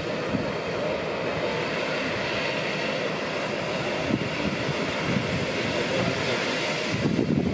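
Steam locomotive venting steam: a steady hiss that does not let up.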